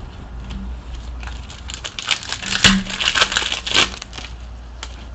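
Trading-card pack wrapper crinkling and rustling as it is handled and torn, loudest in the middle of the stretch, with one sharp click in the middle.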